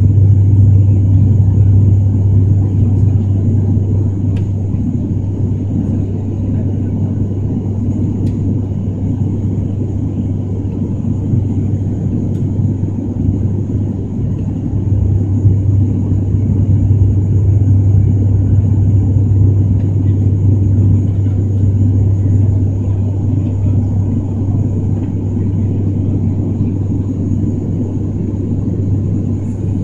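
Turboprop airliner heard from inside the cabin during the climb after takeoff: a steady deep propeller drone over a broad rumble, with a thin high whine, swelling a little about halfway through.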